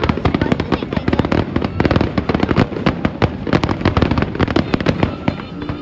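A fireworks display: aerial shells bursting in rapid, overlapping bangs and crackles, many a second, without a pause.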